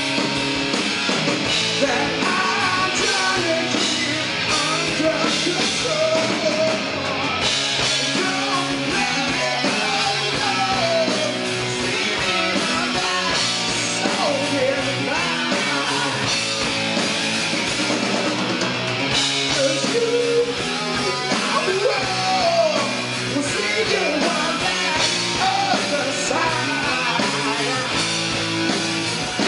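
Live rock band playing loud, with electric guitars, bass and drum kit, and a singer's voice over them.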